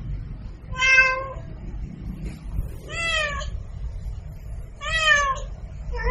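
Domestic cat meowing: three meows about two seconds apart, the later ones falling in pitch, with a fourth starting at the very end, over a low steady rumble.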